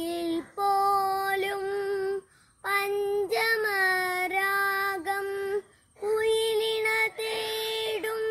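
A boy singing solo and unaccompanied, holding long, steady notes in three phrases with short breaths between them.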